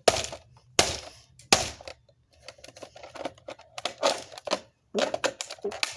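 A screwdriver stabbing into the plastic case of an iPod docking radio: three hard strikes, then a long run of lighter, quick clicks and taps.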